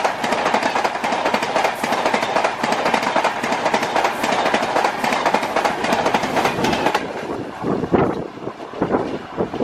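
LHB passenger coaches passing close at speed: a steady rushing noise with a fast, even clickety-clack of wheels over rail joints. About seven seconds in the sound changes to a quieter train moving away, its wheels knocking more sparsely.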